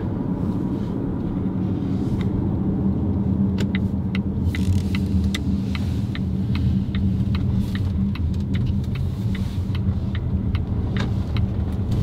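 Car cabin noise while driving: a steady low engine and road hum. From about three and a half seconds in until near the end, a turn signal clicks at an even pace of about two ticks a second.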